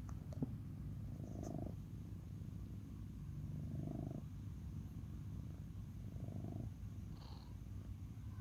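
Domestic cat purring steadily, the purr swelling with each breath about every two and a half seconds, with a brief click near the start.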